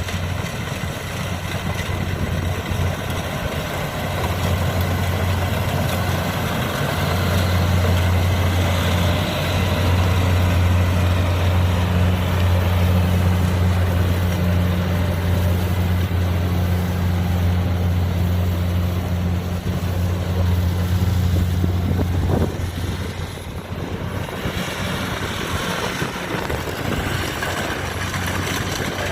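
Kubota DC70 combine harvester's diesel engine running steadily under a steady mechanical din. It grows louder through the middle and eases off somewhat near the end.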